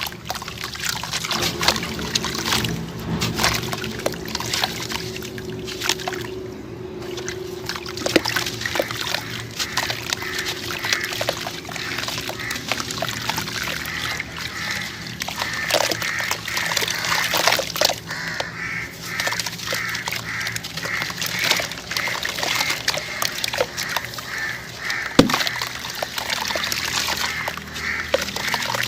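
Chunks of sand-cement crunching and crumbling under the hands: a dense run of gritty crackles and trickling grains.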